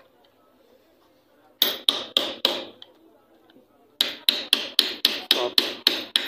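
Hammer blows on an electric water pump motor, knocking its core out of the housing. Four sharp metallic knocks come about a second and a half in, then after a pause a run of about nine more at roughly four a second.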